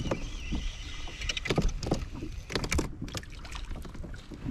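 Spinning reel being cranked as a small fish is brought up on a light rod, with scattered clicks and a few sharp knocks from the reel and rod handling. Under it is a steady low rumble of wind and water on the action-camera microphone.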